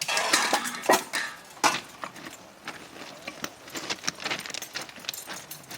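Scattered metallic clinks and knocks, loudest and densest in about the first second, then sparser short clicks.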